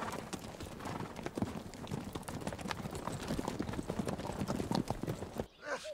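Hoofbeats of a troop of cavalry horses riding off down a dirt street: many hooves clattering at once in a dense, uneven patter. The clatter cuts off suddenly about five and a half seconds in.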